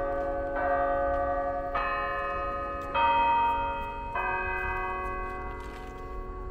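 Chime bells of a floral clock ringing a slow tune, a new note struck about every second and a bit, each one ringing on under the next and fading toward the end.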